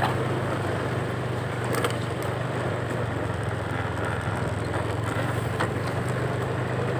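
Small engine running steadily at an even speed, a constant low drone, with a few faint clicks over it.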